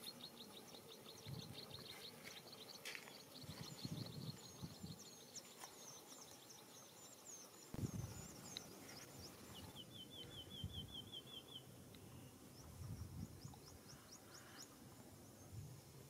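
Faint rural outdoor ambience of small birds chirping and calling. A high pulsing trill runs through the first half, and a quick run of about ten notes comes around ten seconds in. A few dull low thumps are heard now and then.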